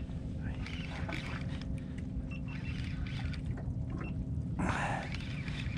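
Water sloshing and lapping against a boat's hull over a faint steady low hum, with small ticks, and one brief louder splash-like rush a little under five seconds in.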